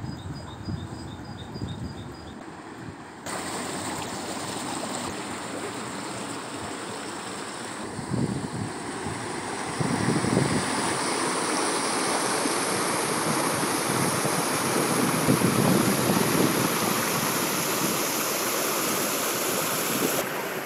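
Shallow, fast-flowing brook rushing over stones in a walled channel: a steady rushing of water that gets louder about three seconds in and again about ten seconds in.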